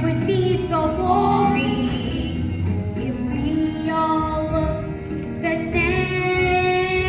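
Children singing a stage-musical song over instrumental accompaniment, with long held notes.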